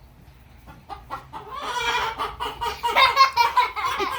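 Chickens clucking: a run of short, repeated calls that starts about a second and a half in and grows louder.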